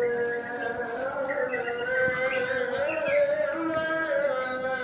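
Music: one long, unbroken chant-like melodic line that slides slowly from note to note.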